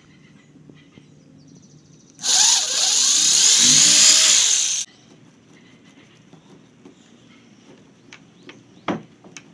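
Corded electric drill boring a hole through a kayak's plastic deck, running for about two and a half seconds from about two seconds in and stopping abruptly. A couple of sharp knocks near the end.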